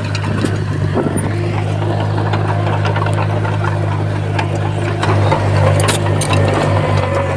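Komatsu bulldozer's diesel engine running steadily under load, with scattered clanks and clicks. The engine note swells and shifts briefly about five seconds in.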